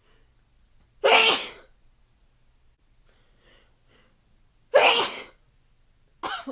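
A person sneezing twice, loud and short, with faint hitching breaths between the sneezes, then a shorter burst near the end.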